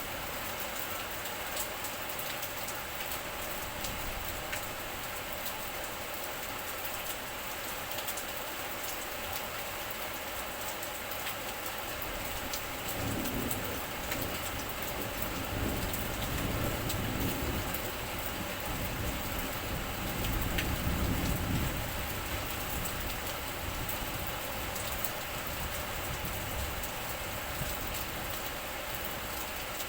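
Steady rain falling, an even hiss. About halfway through, a low rumble builds and then fades over several seconds.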